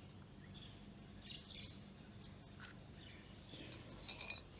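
Faint background bird chirps over a quiet room, with a brief light click about four seconds in.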